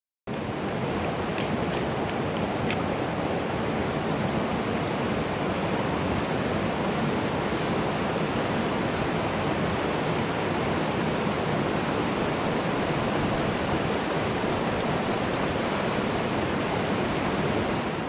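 Mountain river rushing over rocks in small rapids, a steady loud wash of water, with two or three faint high ticks in the first few seconds.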